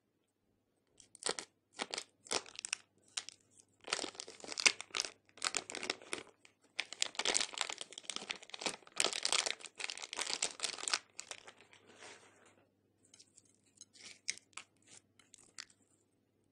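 Thin clear plastic piping bag crinkling and crackling as it is squeezed and peeled off a lump of slime, in a rapid series of crackles that is densest in the middle and thins out near the end.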